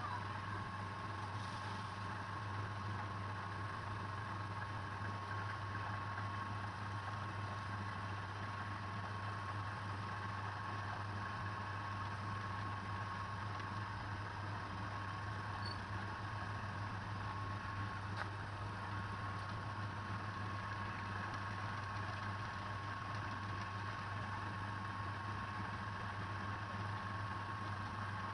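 Wood lathe motor running steadily with a constant low hum and a thin, even whine above it; no tool is cutting.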